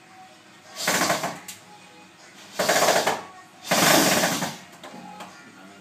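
Corded electric drill-driver run in three short bursts against a ceiling screw that will not turn.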